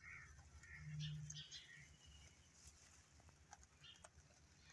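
Faint nibbling of a group of rabbits feeding on fresh green leaves, with a few soft clicks about three and a half to four seconds in, and faint bird chirps in the background.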